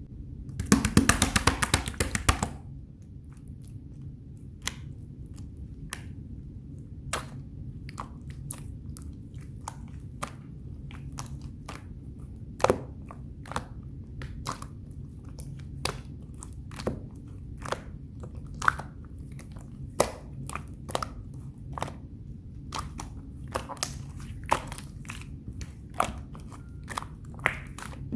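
Thick, dough-like slime being squished by hand: a dense run of crackling squelches for about two seconds near the start, then scattered sharp clicks and pops.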